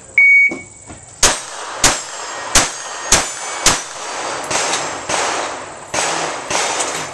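A shot-timer beep, then five sharp shots from a Ruger 22/45 .22 pistol in about two and a half seconds, with steel target plates ringing as they are hit.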